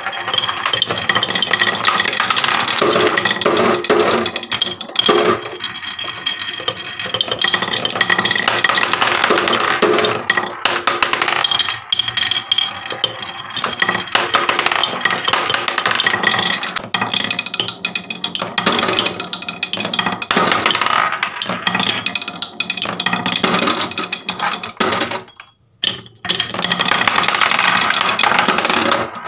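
Several glass marbles rolling down carved wavy wooden slopes (HABA wave slope) of a wooden marble run: a continuous wooden rumble broken by clacks and clinks as the marbles knock together and drop from one piece onto the next. The sound breaks off for a moment near the end, then starts again.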